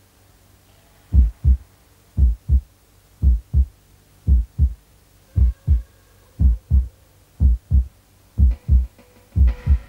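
Heartbeat sound effect: a slow, steady lub-dub of paired low thumps, about one beat a second, starting about a second in. Faint music comes in under it near the end.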